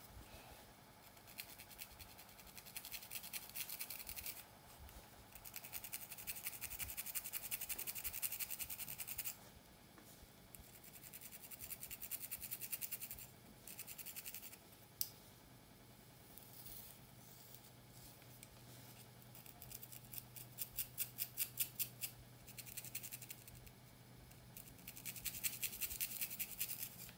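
Tines of a wooden pick comb scratching along a parting in thick, coarse hair, in bouts of several seconds with short pauses. A single sharp click comes about halfway through, followed later by a run of quick separate strokes, about four a second.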